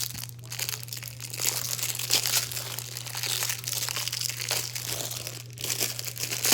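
Plastic packaging crinkling and rustling in a stream of irregular crackles as it is handled and opened.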